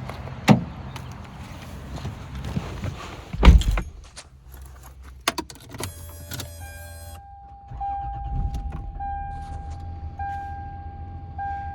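Lexus GS300's 2JZ inline-six being started after a MAF sensor connector replacement: clicks and a heavy thump about three seconds in, the engine starting around the middle, then idling steadily. Over the idle a pitched warning chime repeats about once a second.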